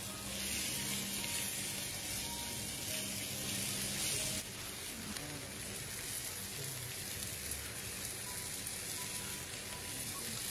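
Beef slices sizzling on a tabletop barbecue grill plate, a steady hiss that is louder for the first four seconds or so, then drops suddenly to a quieter sizzle.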